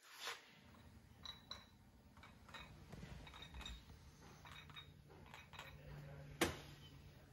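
Light metallic clinks and taps of tools and engine parts being handled, some ringing faintly, with one sharper click about six and a half seconds in, over a faint steady hum.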